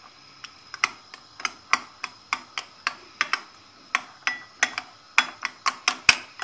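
Metal spoon clicking against a white ceramic bowl as it beats yogurt and egg yolk together into a soup liaison, a steady run of sharp clicks about three a second.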